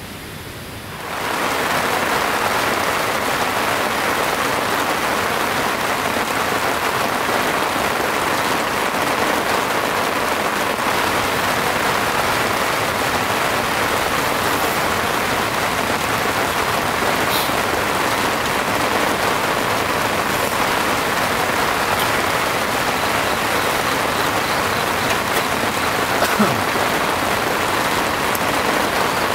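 Heavy rain falling steadily, a dense even patter that swells up over about the first second and then holds.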